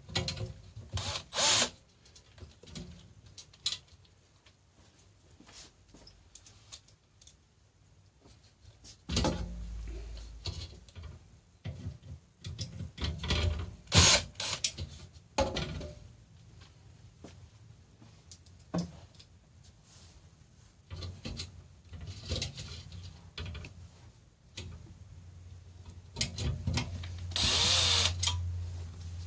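Stool parts and bolts being handled and fitted, with scattered knocks, clinks and scrapes. Near the end a power drill-driver runs for a few seconds, its pitch falling as it slows, driving in the bolts that join the swivel seat to the base.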